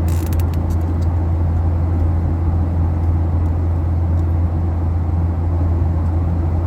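Steady cabin drone of a Boeing 737-800 in flight: even engine and airflow noise with a strong deep hum. A few faint clicks in the first second.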